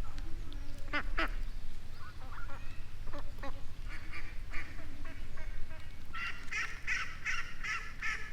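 Ducks quacking: scattered single calls, then a quick run of quacks, about four a second, in the last couple of seconds.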